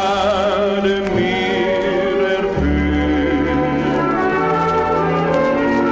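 Old 78 rpm shellac record of a German slow-foxtrot: a male singer holds a final sung note with vibrato for about a second, then the dance string orchestra plays on in long held chords.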